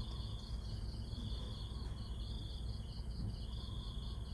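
Insects chirping in high, repeated trills, each under a second long and about a second apart, over a low steady hum.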